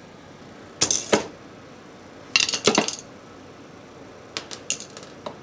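Metal hand tools, a pair of pliers and a screwdriver, being set down onto a concrete floor: three short bursts of metallic clinks and clatter.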